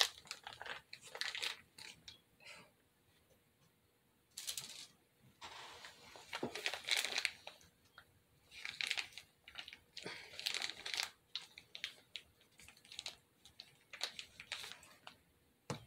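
Plastic piping bag crinkling in irregular bursts as it is twisted and squeezed in the hands, with a short quiet pause early on.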